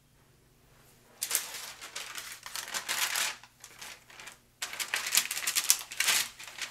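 Parchment paper crinkling as it is handled and pressed down into a glass baking dish, in two stretches of dense crackling.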